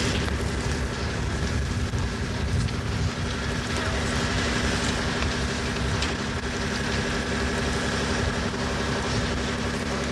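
Steady low rumble of a fire engine's engine running, under a constant hiss.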